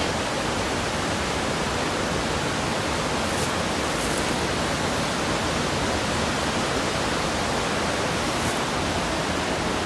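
Large waterfall pouring over a rock ledge: a steady, even rush of falling water, heard from close above the falls.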